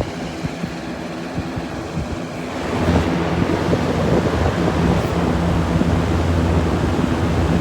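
Box fan running on its highest setting, blowing up a thin bed sheet: a steady motor hum under rushing air, growing louder about two and a half seconds in.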